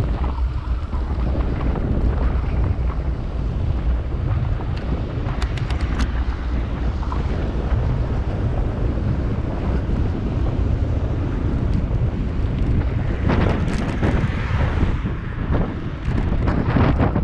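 Wind buffeting the microphone: a steady, noisy low rumble, with a few sharp clicks and a louder gusty stretch in the second half.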